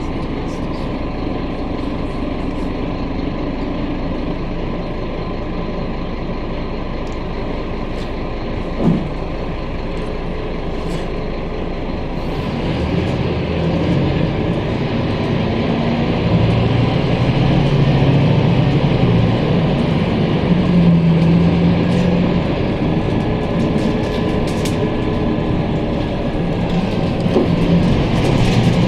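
Interior of a Scania K310UB city bus on the move: a continuous engine and road-noise drone with small rattles from the cabin. The engine grows louder about halfway through. A single knock sounds about nine seconds in.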